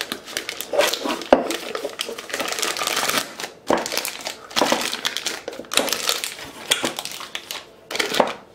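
Plastic piping bag crinkling and rustling in irregular bursts as it is handled and opened out.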